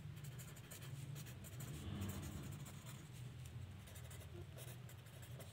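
Pen scratching across lined paper as words are written by hand, faint and irregular, over a low steady hum.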